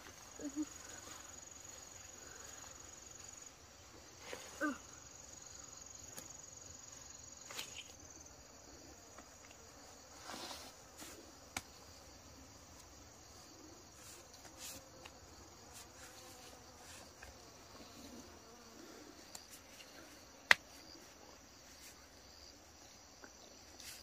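Insects chirring in a steady, high-pitched drone, with scattered faint clicks, a short squeak a few seconds in, and one sharp click near the end.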